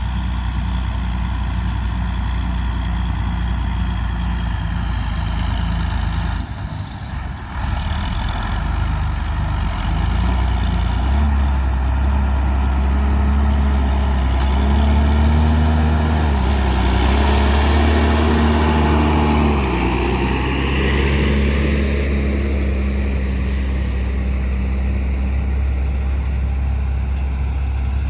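Large diesel engine of harvest machinery running steadily. It dips briefly about six seconds in, then runs louder and higher, wavering in pitch, for about nine seconds before settling back to a steady run.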